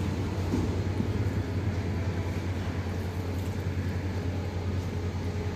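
Steady low drone of a jet airliner, an even rushing noise over a constant low hum, with no distinct events.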